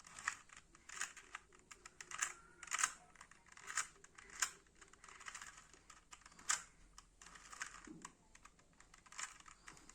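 A plastic 2x2 Rubik's cube being turned through an algorithm: an irregular run of clicks and clacks as the layers are turned, some louder than others.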